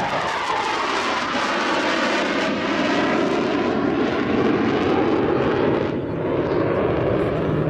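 Panavia Tornado jet's twin RB199 turbofan engines making a loud, steady roar in flight.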